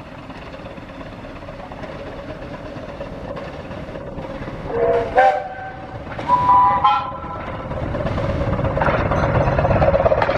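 Miniature steam locomotive on the 15-inch-gauge Romney, Hythe & Dymchurch Railway sounding its whistle in two short blasts about halfway through, while the train's running noise grows steadily louder as it approaches.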